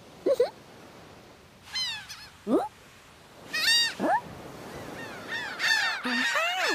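Gulls calling, at first singly and then in a busier run of overlapping calls near the end. Three short squeaks that slide upward in pitch are heard between the calls.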